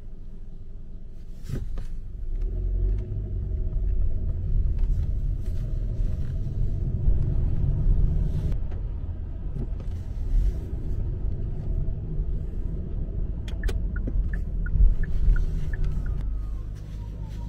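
Car engine and road rumble, heard from inside a moving car. It picks up about two seconds in and eases off near the end, with a short run of light ticks shortly before.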